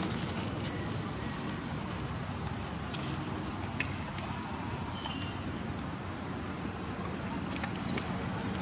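Steady high-pitched drone of an insect chorus. Near the end, a few short, high, wavering calls stand out above it.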